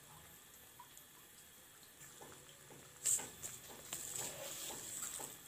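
Pan of chayote broth simmering, with faint bubbling at first. About three seconds in comes a sudden sharp sound, followed by a couple of seconds of louder bubbling and popping.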